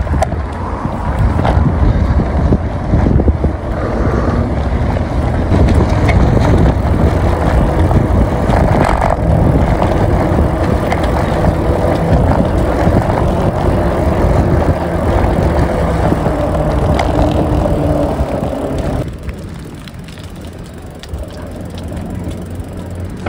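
Wind rushing over the microphone and tyre rumble from a bicycle ridden along a concrete footpath, loud and steady; it drops noticeably about 19 seconds in as the bike slows.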